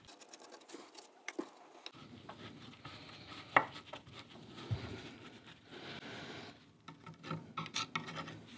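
Small screwdriver tip scraping and picking at a small brass nameplate on a wooden workbench, with scattered light metallic clicks and taps and one sharper tick about three and a half seconds in.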